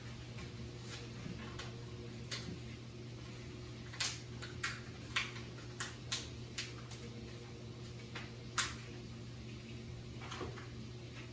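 Paper and plastic being handled, giving scattered sharp crinkles and clicks, bunched in the middle, over a steady low hum.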